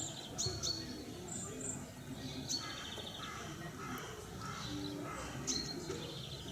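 Small birds chirping in short high calls, several times, over steady outdoor background noise.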